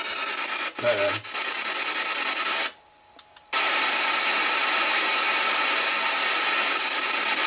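PSB7 spirit box sweeping radio stations at full speed in reverse mode: a steady rush of static that cuts out for under a second about three seconds in.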